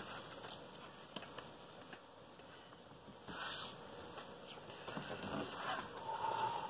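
Playing cards sliding across a cloth desk mat as a deck is spread out in a ribbon and gathered up: a few soft swishes, the clearest about three seconds in and a cluster near the end.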